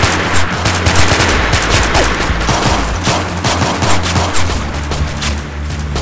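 Rapid, overlapping gunfire from an assault rifle and handguns, shots coming in quick bursts throughout. A low, steady music bed runs underneath.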